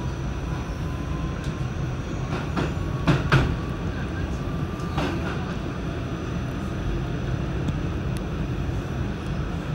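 Pullman Standard R46 subway car running at speed through a station on board: a steady rumble with a few sharp clacks from the wheels and track between about two and a half and five seconds in, the loudest a pair just after three seconds.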